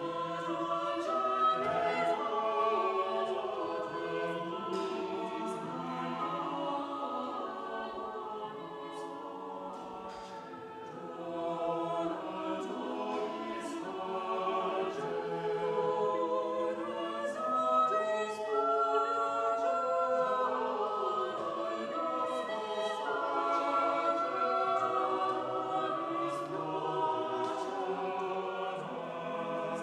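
Church choir singing in several parts, growing quieter around ten seconds in and then swelling again.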